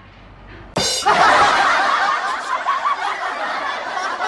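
Laughter, starting suddenly about a second in after a brief lull and carrying on at a loud level.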